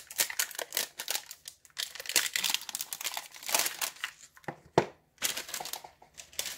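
Clear plastic wrap crinkling in irregular spurts as it is peeled off and crumpled away from a small wooden box, with one sharp knock a little under five seconds in.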